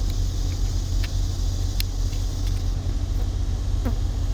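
Steady low rumble with a few light clicks.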